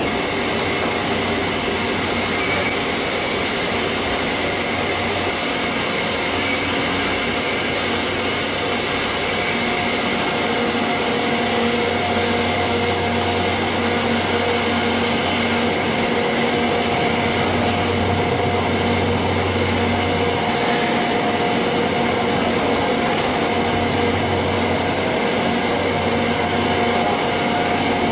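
Factory processing-line machinery running steadily, with a low hum and a few steady whining tones over the noise.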